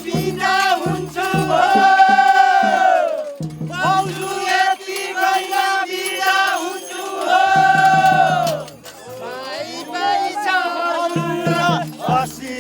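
Nepali folk music: voices singing with long held notes over low drum beats and a jingling rattle. The drum beat drops out in stretches while notes are held and comes back near the end.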